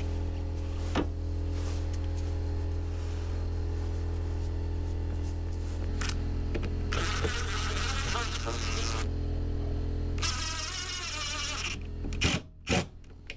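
Portable generator running steadily, heard as a low droning buzz. About seven and again about ten seconds in, two stretches of higher hissing noise lie over it.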